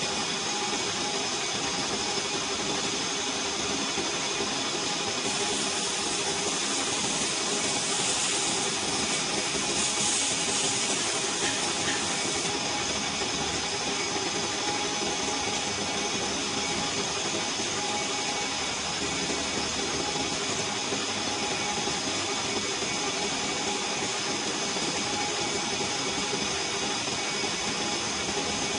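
Engine lathe turning a stainless steel (1.4301) pipe: the spindle and drive run steadily with several steady tones while the tool cuts. A brighter hiss comes in between about five and twelve seconds in.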